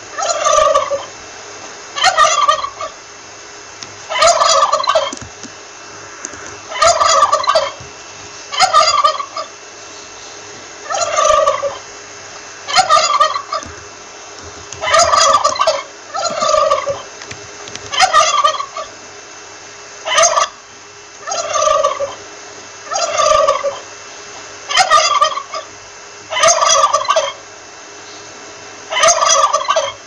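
Male turkey gobbling over and over, one rattling gobble about every one and a half to two seconds.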